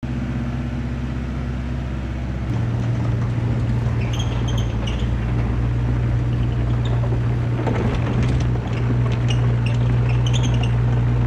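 Kubota KX121-3 mini excavator's four-cylinder diesel engine running steadily, getting louder about two and a half seconds in as the machine tracks forward. Short high squeaks and clicks come in from about four seconds in while it travels on its tracks.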